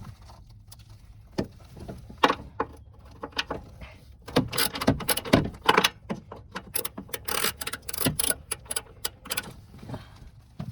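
Hand tools on the car's 10 mm fender-bracket bolts: scattered metallic clicks, clinks and scrapes of a socket and ratchet, coming thicker in the second half.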